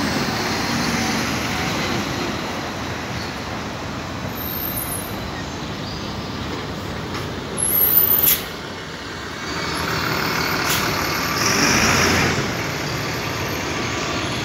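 City buses and street traffic passing close by, engines running. About eight seconds in comes a short, loud hiss, like a bus's air brakes releasing.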